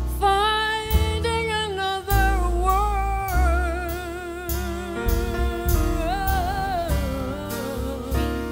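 Live small jazz band: a female vocalist sings long, held notes with vibrato, backed by piano, upright bass and drums.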